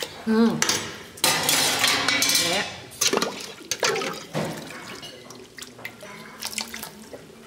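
A metal ladle scooping and stirring thick tomato soup in a steel stockpot: liquid sloshing, with sharp clinks of the ladle against the pot. An appreciative "mmm" comes right at the start.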